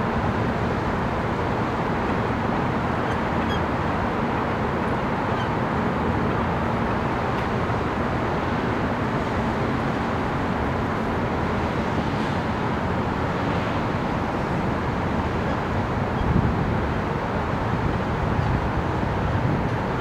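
Steady road traffic noise: a continuous wash of passing vehicles, with a brief louder swell about four-fifths of the way through.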